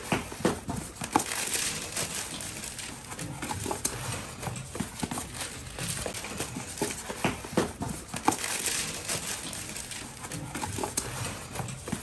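Clear plastic bags crinkling and rustling while white plastic socket and switch plates are handled and bagged, with irregular clicks and clacks of the plastic plates knocking together.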